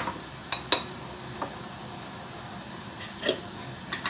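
Kitchen utensils clinking and knocking: a sharp knock right at the start, then a handful of lighter clinks spread over the next few seconds, over a low steady hiss.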